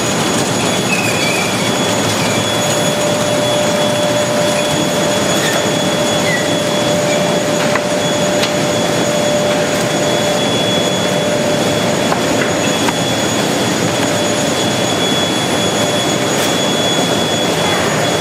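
Steady din of cabbage-washing machinery: churning, air-bubbled water in stainless wash tanks and running conveyors, with a steady whine running through it.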